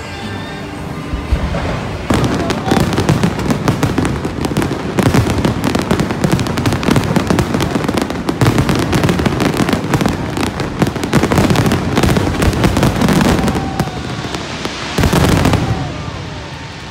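Aerial fireworks going off in a dense barrage, with bangs and crackles packed close together. The barrage starts about two seconds in, runs loud and continuous, and dies away near the end.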